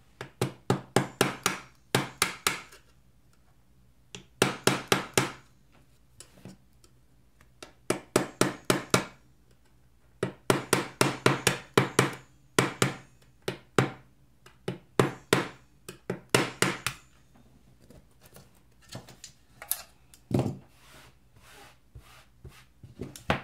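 Locking pliers working rivets out of a 2015 MacBook Pro's aluminium top case: bursts of quick sharp metallic taps and clicks, several a second, with short pauses between. The bursts thin out into fainter scattered ticks near the end.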